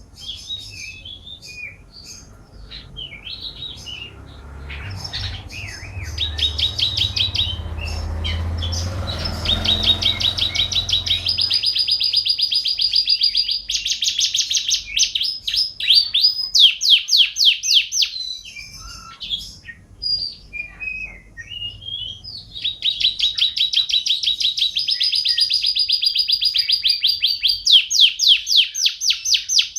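Domestic canary singing: long, rapid trills and rolls of quickly repeated high notes, with a short break in the middle before the trilling resumes. A low rumble sits underneath during the first half.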